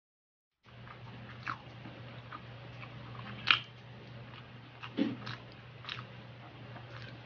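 Close-up mouth sounds of eating by hand: chewing with short wet clicks and smacks, the sharpest about three and a half seconds in, over a steady low hum. The sound cuts in just under a second in.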